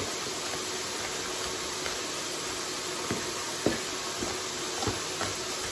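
Steady sizzling hiss of beef steak frying in a pan, with a few soft knife taps on a cutting board as onion is chopped.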